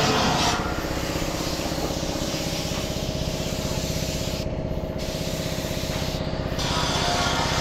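Siphon-feed air spray gun hissing as paint is sprayed, the hiss strongest in the first half-second and cutting out briefly twice in the second half. Under it runs a steady, low, engine-like drone.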